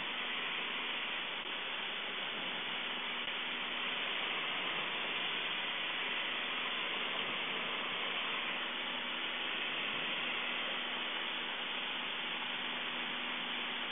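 Steady cockpit noise of a Cessna 152 in flight: its four-cylinder Lycoming engine and propeller running at constant power, a faint low hum under a continuous rush of air and engine noise.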